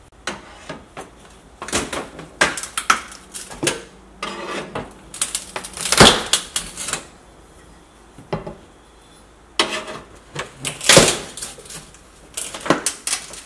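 Flat metal pry bar scraping and tapping at the edge of an old countertop against the tiled backsplash: irregular clicks and short scrapes, loudest about six and eleven seconds in.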